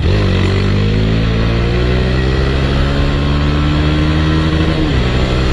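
Motorcycle engine accelerating, its pitch rising steadily, then dropping suddenly near the end as it shifts up a gear.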